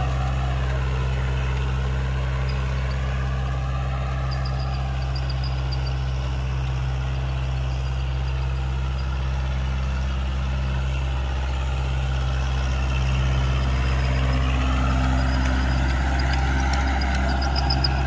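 Kubota MU4501 tractor's four-cylinder diesel engine running steadily under load while it drives a 7-foot Ambica rotavator through the soil. It gets a little louder in the last few seconds.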